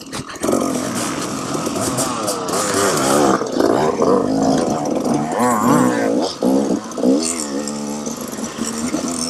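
Dirt bike engine revving up and down repeatedly, its pitch rising and falling as the throttle is worked.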